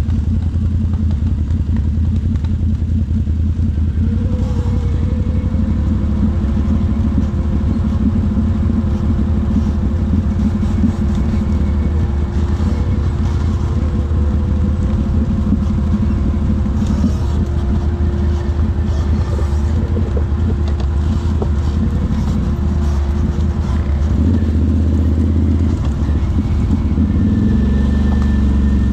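ATV engine running steadily under way, with a low drone and a held engine note that shifts about three-quarters of the way through.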